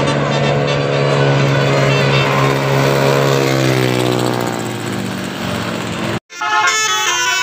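A bus engine runs loudly as the bus passes, its pitch sliding down over the last few seconds. After an abrupt cut, a multi-tone 'telolet' bus horn plays a stepped melody near the end.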